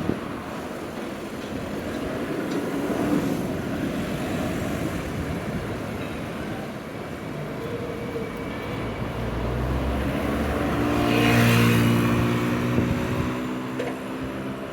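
Street traffic, with a motor vehicle passing close by: its engine note builds from about seven seconds in, is loudest around eleven to twelve seconds, then fades.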